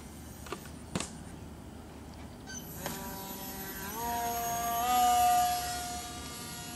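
Radio-controlled model plane's motor and propeller giving a steady, pitched drone. The pitch steps up twice as the throttle is opened, and the sound is loudest about five seconds in as the plane passes low over the water. Two short clicks come before it, near the start.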